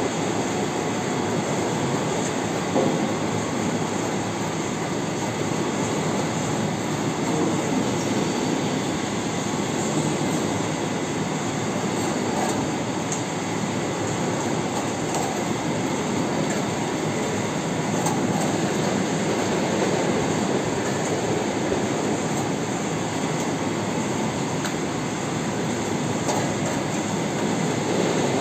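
Passion fruit lid-cutting and pulp-separating machine running, its spinning cutter making a steady mechanical whir as fruits are pressed onto it.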